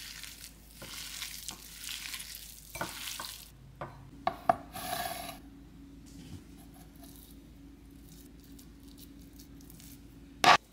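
Hands squishing and kneading raw ground beef with egg yolk and seasoning in a bowl for a few seconds. Then come a few sharp clicks and a brief scrape, and near the end a single loud knock.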